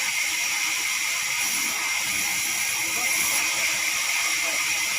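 Horizontal band sawmill running, a steady high-pitched hiss with a thin constant whine from the blade cutting through the log.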